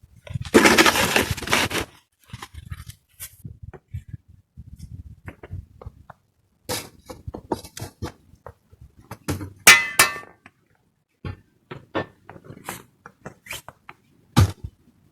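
Objects being handled: a short rush of noise near the start, then scattered knocks and clicks, with one ringing clink, like dishes or a pot, about ten seconds in.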